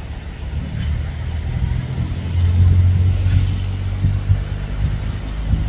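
A motor vehicle engine running nearby as a low rumble. It grows louder about two seconds in and eases off after about four seconds, as if passing.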